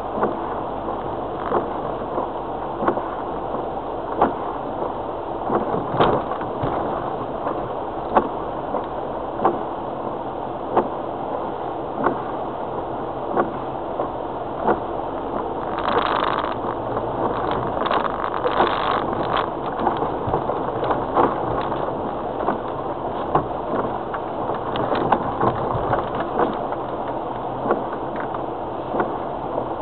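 Inside the cabin of a Land Rover Freelander TD4 crawling along a rough, wet track: its four-cylinder turbodiesel runs steadily under the cabin rumble. Short knocks come about every second and a half, and there is a brief louder rushing about midway.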